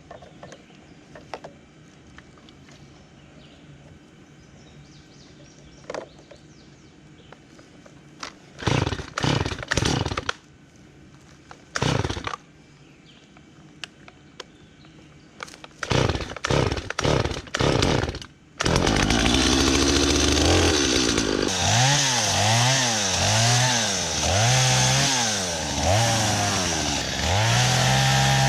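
Two-stroke chainsaw pull-started with several short tugs before it catches about two-thirds of the way through, then running loud and revving up and down repeatedly, its pitch dipping and rising again and again.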